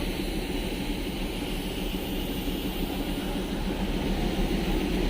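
Steady rumble and hiss of the Darjeeling Himalayan Railway toy train's locomotive standing at the station, running without change.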